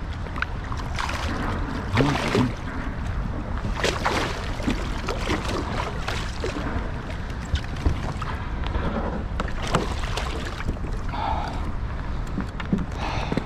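Wind rumbling on the microphone, with water sloshing against a fishing kayak and scattered knocks and clicks of tackle being handled.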